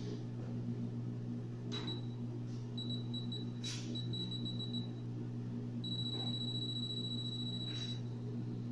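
Electronic apex locator's audible alarm: a single high beep, then a rapid run of short beeps, then a steady continuous tone from about six seconds in, signalling the file tip closing in on and reaching the apical mark. A steady low electrical hum runs underneath, with a few faint handling rustles.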